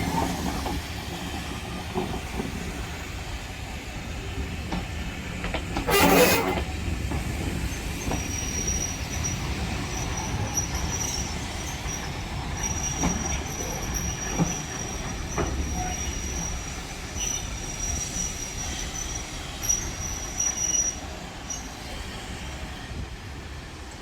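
Heritage railway train rolling slowly past with a steady low rumble, a short loud burst of noise about six seconds in, then a thin high wheel squeal held for most of the rest.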